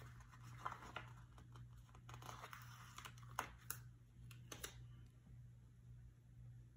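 Paper sticker sheet being handled and a sticker peeled off it: quiet crinkles and small sharp clicks that stop a little under five seconds in.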